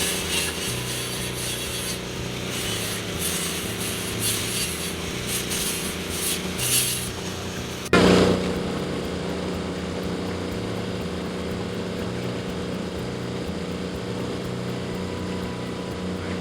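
Building work with tools: a steady machine hum with rasping, scraping strokes, which stop about seven seconds in and give way to the hum alone.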